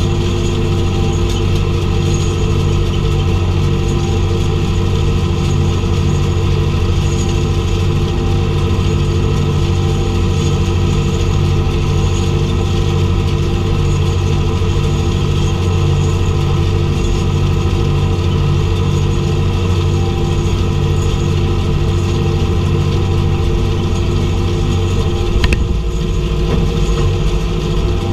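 International tractor engine running steadily at a constant note while baling. About 25 seconds in there is a sharp click, and the engine note drops and changes.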